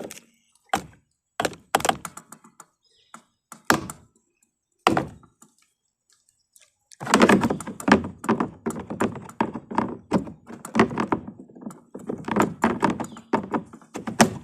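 Repeated knocks and thumps: a few single ones in the first five seconds, then a dense, rapid run of them from about seven seconds in.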